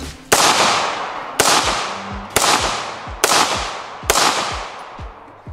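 Five shots from an AR-15 rifle in 5.56 fitted with an Ultradyne Apollo Max compensator, fired semi-automatically about one second apart. Each report is sharp and rings out in a fading echo before the next.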